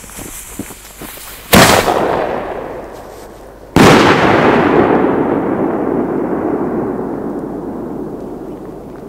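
Pyroco 50 mm single-shot firework tube firing. A few faint crackles from the burning fuse come first. A loud bang about a second and a half in is the lift charge, and a second loud bang a little over two seconds later is the shell bursting overhead; its report echoes and fades slowly over the next few seconds.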